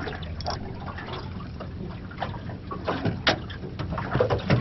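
Water lapping and splashing against the side of a small boat at anchor, with a few sharp clicks and knocks, the clearest about three seconds in.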